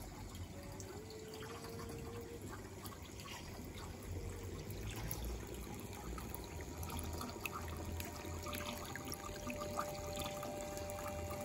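Water trickling and splashing steadily, as from a small running-water feature in a model nativity scene, with a few faint held tones in the background.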